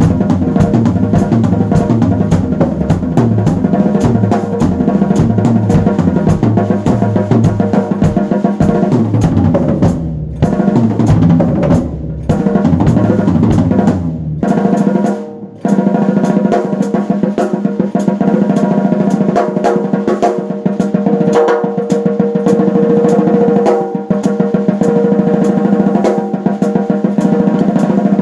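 Music driven by a drum kit played with rapid hits over pitched instruments. It breaks off briefly a few times around the middle, and after that the deep bass drops out.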